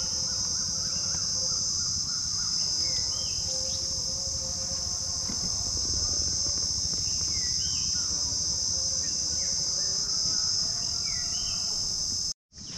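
Steady, high-pitched drone of insects, with a bird giving short repeated calls every second or two over it. The sound cuts out briefly near the end.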